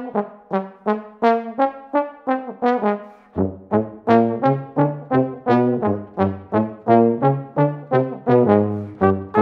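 Instrumental background music of quick, short, detached notes, about three a second, with a lower bass part joining about three seconds in.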